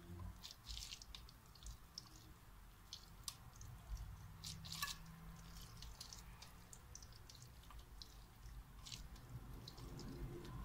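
Faint, irregular wet squishing and small clicks of hands pressing a moist rice-and-meat filling into sheep's tripe.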